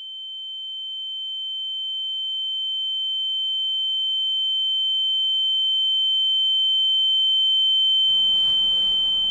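A steady, high-pitched electronic beep tone, one pure unbroken note with a much fainter lower note beneath it, swelling slowly louder. Faint room noise comes in under it near the end.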